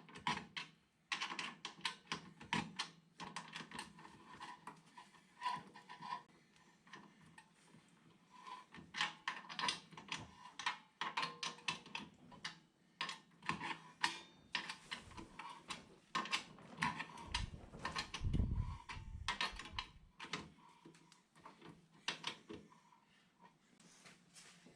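Irregular clicks and metallic clinks of hand tools and parts being handled while assembling a VW T3's brake: anchor plate, wheel cylinder, springs and shoes. A dull low thump partway through.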